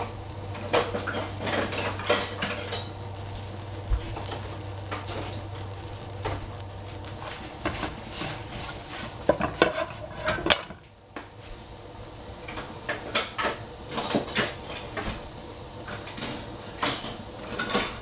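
A metal utensil clinking and scraping against a pan in irregular knocks, as food is stirred. A steady low hum underneath stops about seven seconds in.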